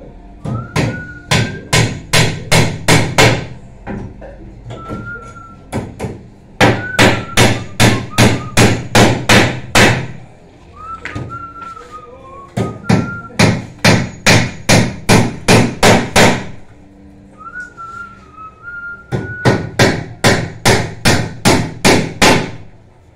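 Hammer driving nails into wooden framing: four runs of quick, loud blows, about three a second, with short pauses between runs. A person whistles a few faint notes between the runs.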